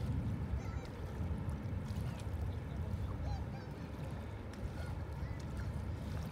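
Outdoor seaside ambience: a steady low rumble of wind buffeting the microphone and water at the shore, with a couple of faint high chirps.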